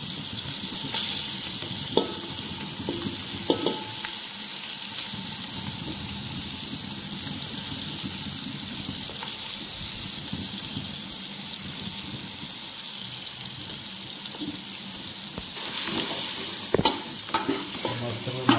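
Raw chicken pieces sizzling in hot oil in a steel pot, a steady hiss with a couple of light knocks in the first few seconds. Near the end a spoon starts stirring, scraping and clinking against the pot.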